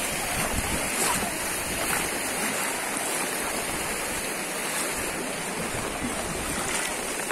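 Steady rush of floodwater streaming across a road and spilling over its edge.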